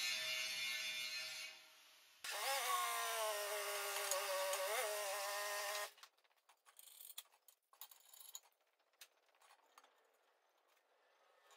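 Corded angle grinder running inside a steel tractor wheel rim, grinding rusty metal clean where the centre is to be welded; it eases off about a second and a half in, starts again with its pitch wavering under load, and cuts off abruptly about six seconds in. Afterwards only faint clicks and light knocks.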